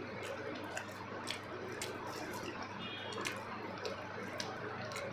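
Close-miked wet chewing and mouth smacks from eating soft food, a scatter of short, sharp clicks over a low, steady hum.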